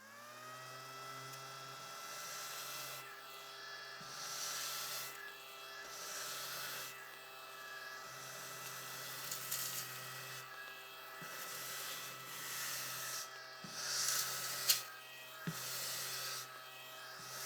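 Dustbuster handheld vacuum switched on: its small motor spins up and settles into a steady buzzing whine, with the rush of air swelling and easing every few seconds. A few light knocks come in the second half.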